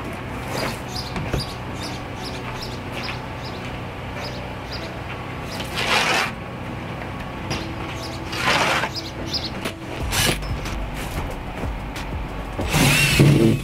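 Background music with a steady beat, broken by three short bursts of rushing noise about six, eight and a half, and thirteen seconds in.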